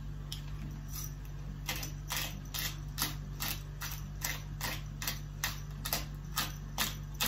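Pepper mill being twisted, grinding pepper in a steady run of short dry clicks, about three a second, starting a little under two seconds in.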